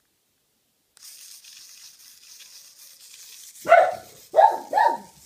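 A pug barking three times in quick succession, short sharp barks that fall in pitch, starting a little past halfway. Before them, a faint scratchy noise.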